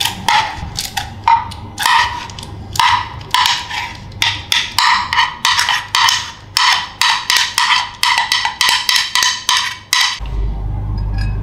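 A metal spoon scraping and knocking against a metal bowl, about three short ringing strokes a second, getting quicker in the second half and stopping about ten seconds in.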